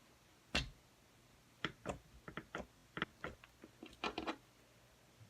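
Putty being squeezed and worked in the hands, giving a single click and then a run of short, irregular clicks and pops.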